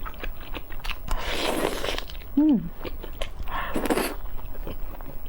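Close-up eating sounds of braised pork: wet clicks and lip smacks of chewing, with two breathy puffs. A brief falling hum comes about halfway through.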